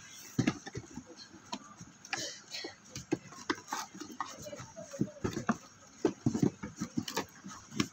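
Cardboard box being opened and handled: flaps rustling and scraping, with a run of irregular knocks and bumps as the boxed product is worked out of it onto the desk, thickest towards the end.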